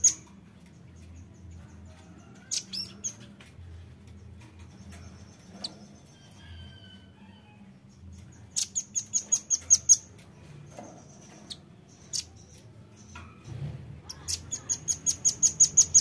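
Velvet-fronted nuthatch calling in fast trills of sharp, high chip notes, about six a second and growing louder through each burst. Two such trills come about a third of the way in and near the end, with scattered single chips between.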